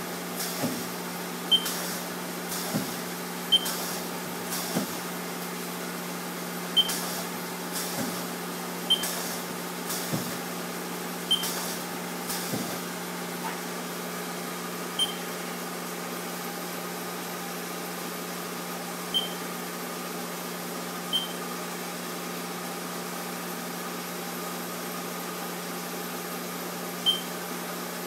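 Haas SL-30 CNC lathe running with a steady hum. Short, sharp high beeps with clicks come every second or two at first, then only every few seconds after about halfway.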